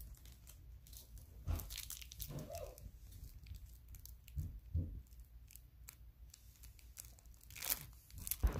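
Foil trading-card pack wrapper crinkling and tearing open, with scattered light clicks and rustles as the cards are handled.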